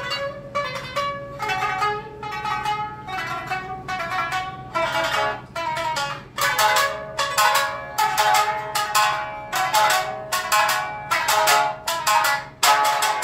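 A trio of Tsugaru shamisen played together, the strings struck hard in quick succession so that each note starts with a sharp percussive snap and then rings. The strikes grow louder and denser from about six seconds in.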